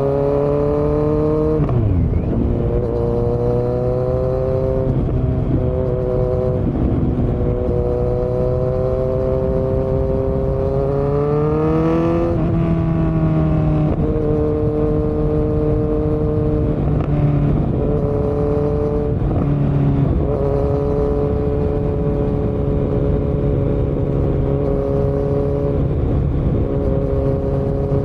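2018 Kawasaki Z900's inline-four engine through a Yoshimura muffler and Delkevic headers with no dB killer, accelerating hard with the pitch climbing and dropping back at several gear changes. From about halfway it holds a steady pitch at cruise, with a few brief dips as the throttle is eased.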